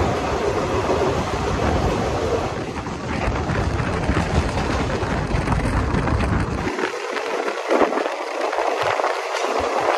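Moving train heard from on board: a loud, steady rush of wind and wheel-on-rail noise with a deep rumble. About seven seconds in, the rumble drops out suddenly, leaving a hiss with scattered clicks.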